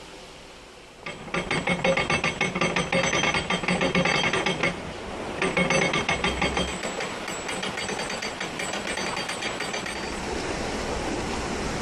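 Canal lock paddle gear being wound up with a windlass: the ratchet pawl clicks rapidly over the rack in two runs, with a short break between them. A steady rush follows as water pours through the opened paddle.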